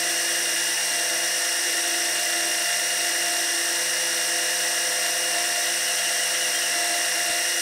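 12-volt electric oil extractor pump running steadily, drawing motor oil up its suction hose. It is still pulling liquid rather than air as the bottle nears empty.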